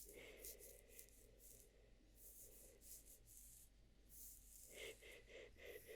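Faint, soft rubbing and brushing strokes close to the microphone, ASMR-style hair playing, in short swishes repeating every half second or so.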